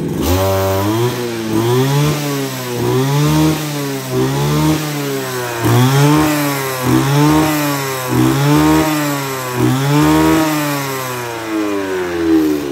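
Kawasaki TJ27 27 cc two-stroke brush-cutter engine revved hard over and over, about once a second, its pitch leaping up and dropping back each time before settling near the end. Its quick pickup on each blip shows a sharp throttle response.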